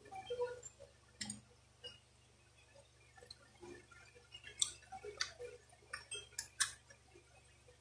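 Light clicks and taps of an air gun's metal receiver and wooden stock knocking together as they are handled and fitted, with several sharper clicks in the second half.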